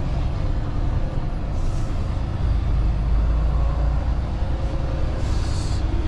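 Semi truck's diesel engine running low and steady, heard from inside the cab as the truck rolls slowly. Two short hisses sound, one about two seconds in and a longer one near the end.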